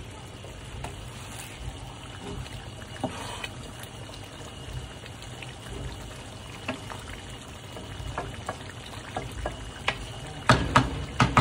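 Food sizzling steadily in a cooking pot, with light clicks of a utensil and a few louder knocks against the pot near the end.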